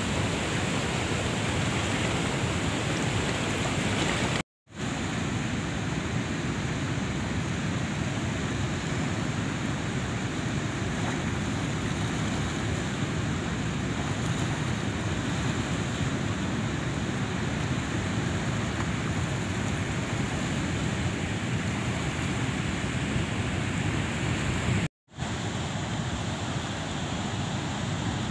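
Steady rushing of fast-flowing river water below a dam's spillway. It is broken by two brief gaps of silence, about four seconds in and a few seconds before the end.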